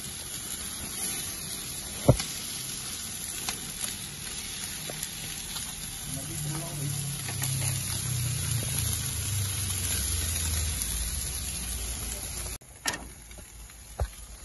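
Meat and kebab skewers sizzling on a hot gas grill, a steady hiss with a sharp click about two seconds in. A low rumble swells in the middle and sinks in pitch, then the sound changes abruptly near the end.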